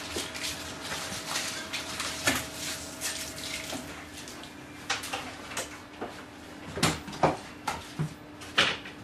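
Irregular sharp clinks and clatters, like small hard objects being handled, over a steady low hum; the clinks come thicker and louder in the second half.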